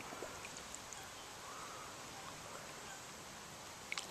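Faint, steady outdoor ambience at the water's edge, with a brief small splash of water near the end as a hand stirs the shallows.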